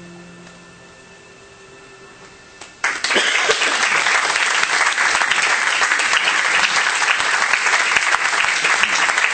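Audience applause, starting suddenly about three seconds in and then going on loud and even. Before it, only a few faint held tones.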